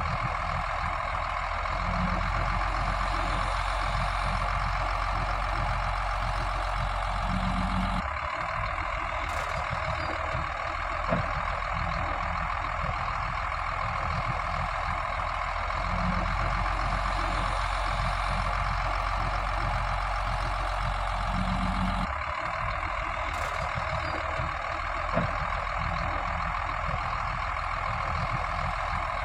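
Steady heavy diesel engine noise of trucks and earthmoving machinery at work. It is a looped recording that repeats about every fourteen seconds, with a short knock about eleven seconds in and again fourteen seconds later.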